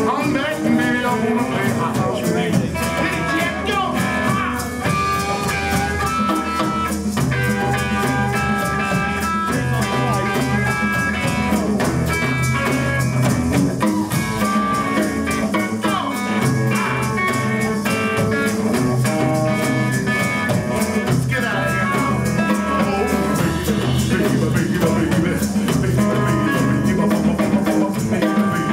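Live rhythm and blues band jamming: electric guitar, upright bass, piano and drums playing together without a break.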